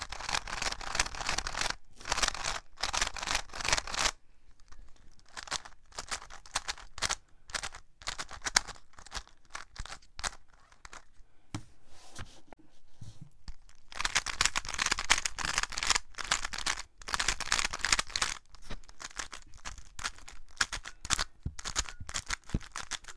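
GAN 356M magnetic 3x3 speedcube being turned fast: rapid runs of plastic clicking and clacking as the layers snap past their magnets, in bursts with short pauses between turning sequences.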